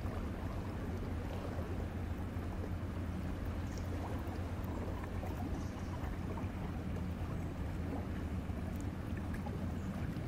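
Diesel engines of two inland tanker vessels running under way, a low, steady drone with an even hum and a faint wash of water.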